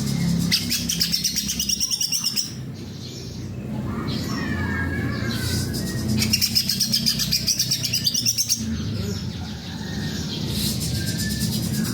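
Green leafbird (cucak ijo) singing energetically: bursts of rapid, high, chattering trills alternate with lower, sliding warbled phrases, with a steady low hum underneath.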